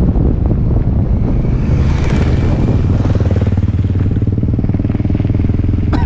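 Wind buffeting the microphone and tyres rumbling on gravel as a mountain bike rolls downhill, with a motorcycle engine running steadily through the middle. A sharp click near the end.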